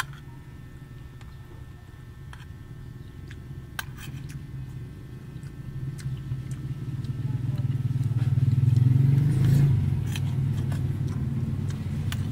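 A motor vehicle's engine hum, low and steady, swelling to its loudest about nine seconds in and then easing off, with a few light clicks of a metal spoon on a plate.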